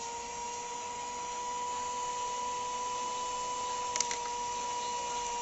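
Small handheld electric beater running at a steady speed with a level, high-pitched whine, whipping fresh cream and sugar in a plastic bowl. A brief click about four seconds in.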